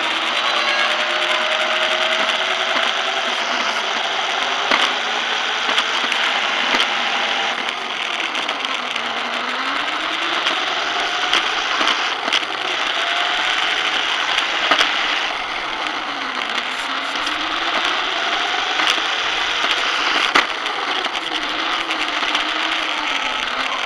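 Emax Interceptor RC car's electric motor and gears whining close-up while it drives across a tiled floor, the pitch rising and falling repeatedly with the throttle. Under it runs a steady rattling hiss from the tyres and chassis, with occasional sharp clicks.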